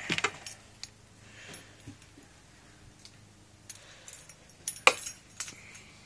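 Light clicks and clinks of short pieces of 4-gauge cable being handled and set down on a shop towel on a bench: a cluster at the start and a louder cluster about five seconds in.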